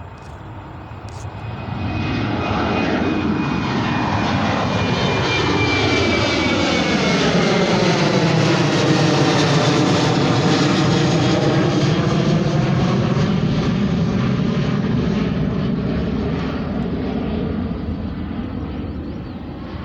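Boeing 737's twin jet engines at takeoff power going by. The sound swells over the first couple of seconds, stays loud with a high whine that falls in pitch, then slowly fades.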